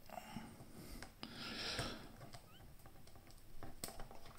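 Faint clicking and rustling of plastic Lego Bionicle and Technic parts being handled as the figure's leg joint, just fitted with a new pin, is worked by hand. There are a few sharp little clicks, two of them near the end.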